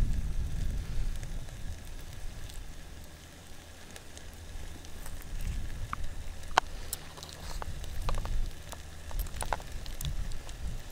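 Wood campfire crackling, with scattered sharp pops mostly in the second half, over a low rumble.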